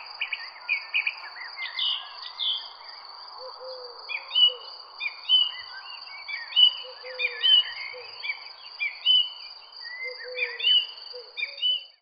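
A chorus of birds chirping and calling in quick, repeated short notes, thicker in the second half. Under it run a steady high insect drone and pairs of low hooting notes every few seconds, over a soft steady hiss of rain.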